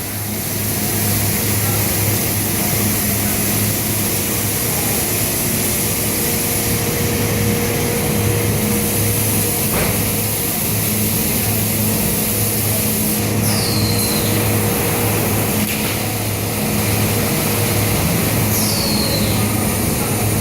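Automatic pressure-vacuum forming machine running while it forms an ABS door: a steady, slightly pulsing low hum with a constant high hiss. There is one sharp click about halfway through, and two short high squeals that fall in pitch, one past the middle and one near the end.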